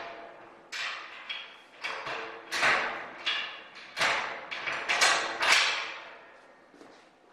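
A quick series of sharp metallic knocks and clanks, two or three a second, each ringing briefly, from hands working at a steel-tube landing-gear leg and its newly fitted wheel. The knocks stop about six seconds in.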